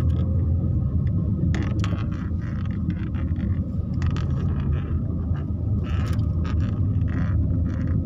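A vehicle driving along a paved road: a steady low rumble of engine and tyres, with brief bursts of higher hiss now and then.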